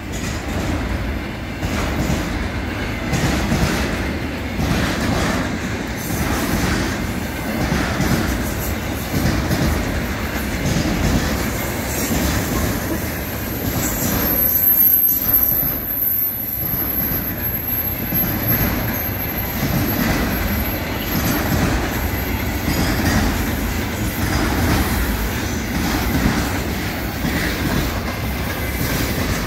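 Container flat wagons of a freight train rolling past at speed: a steady rumble and clatter of steel wheels on the rails. From about halfway through, a thin high wheel squeal runs for several seconds.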